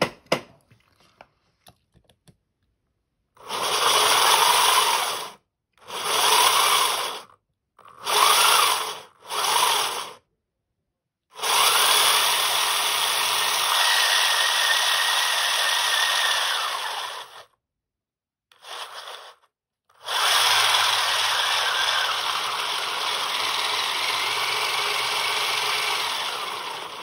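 3D-printed robotic actuator's motor and gearing running, switched on and off in several short runs of one to two seconds, then two longer runs of about six seconds each. In the short runs the whir rises and falls in pitch as the speed is turned up and down.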